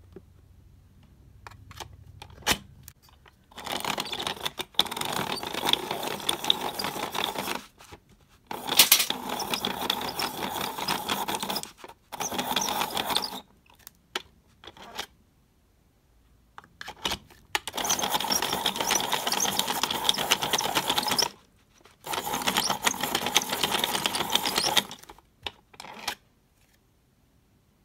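Hand-cranked pencil sharpener grinding a wooden pencil, in several runs of cranking a few seconds long with short pauses between. Clicks and knocks come before and between the runs as the pencil is set in and handled.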